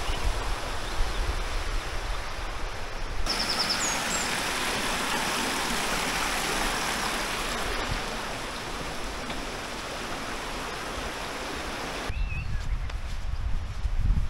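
Rushing water running over stones, a steady hiss that grows louder and brighter about three seconds in and falls away again about twelve seconds in. A few short bird chirps, and a low rumble near the end.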